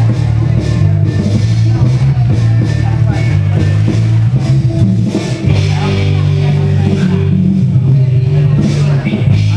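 Loud rock music with electric guitar and heavy bass.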